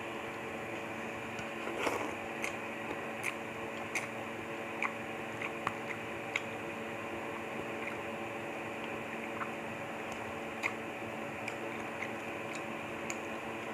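Close-up eating sounds of a lomi noodle mukbang: wet chewing and slurping of noodles, with a dozen or so short sharp clicks scattered throughout and a longer slurp about two seconds in, over a steady background hum.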